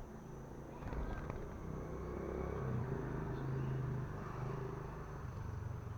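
Low engine hum, like a vehicle passing, swelling to its loudest about halfway through and then easing off, with a thin steady high tone throughout.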